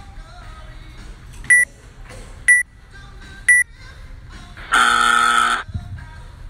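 Workout timer counting down: three short beeps a second apart, then a long buzzer tone as the clock reaches the 15:00 time cap. A dumbbell thuds onto the floor just after the buzzer.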